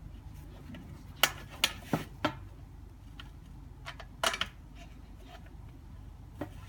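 Screws being tightened into the lectern's leg: four sharp clicks about a second in, a quick pair a little after the middle, and a few fainter ticks as the tool and fittings knock together.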